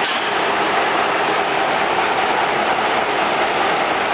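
Steady running noise of a narrow-gauge train rolling along, heard close to the knuckle coupler between two cars.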